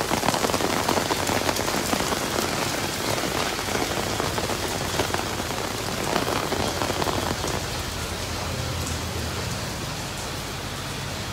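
Heavy rain with hail falling on wet pavement: a dense, steady hiss crackling with many small hits, fading slightly toward the end.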